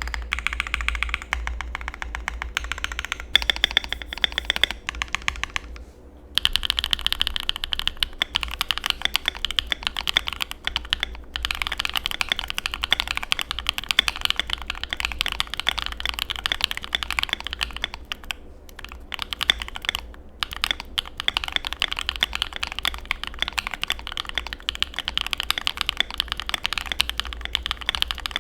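Keychron Q2 mechanical keyboard with factory-lubed BSUN BCP switches, PBT keycaps and a steel plate, typed on quickly: a dense run of key clacks, with a brief pause about six seconds in.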